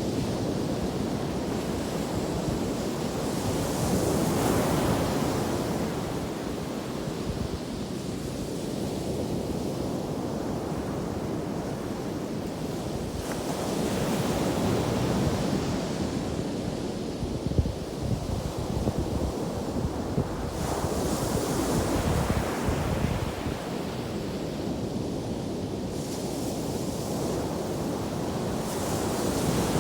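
Atlantic surf after a storm, waves breaking and washing up the beach in a continuous wash that swells every several seconds, with wind buffeting the microphone.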